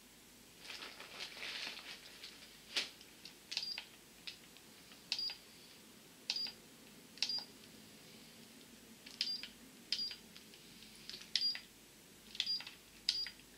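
Buttons on a Mel Meter ghost-hunting meter being pressed: about a dozen sharp clicks, many of them followed at once by a short high beep from the meter. A brief rustle of handling comes about a second in.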